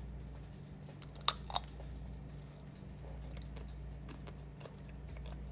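Teeth biting through the thin chocolate coating of a peach-shaped ice cream bar: two quick crisp cracks about a second in, then faint chewing.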